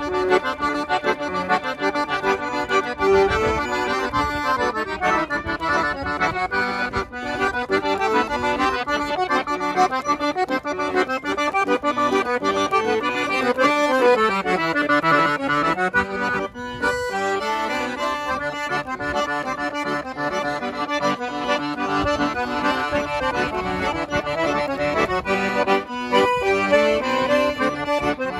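Two piano accordions playing an instrumental duet of southern Brazilian gaúcho music, with reedy chords, a running melody and moving bass lines. There is a brief break in the playing about seventeen seconds in.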